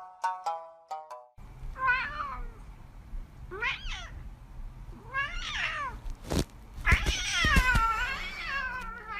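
A cat meowing four times, the last meow long and drawn out, with a couple of sharp knocks in between.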